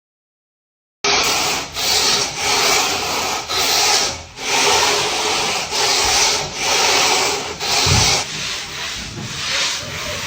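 Repeated rough scraping strokes, roughly one a second, starting about a second in after a moment of silence.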